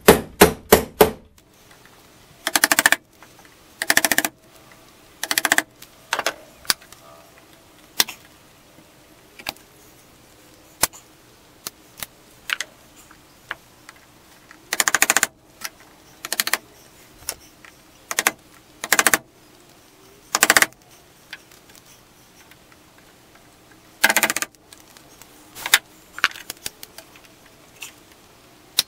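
Wooden mallet knocking on a wooden window frame. Sharp knocks come every second or two, some single and some in quick runs of several taps, with a fast burst of about five blows at the start.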